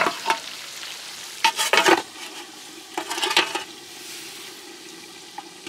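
Food frying and sizzling in a pan while a utensil stirs it, scraping and clattering against the pan in short spells about one and a half and three seconds in.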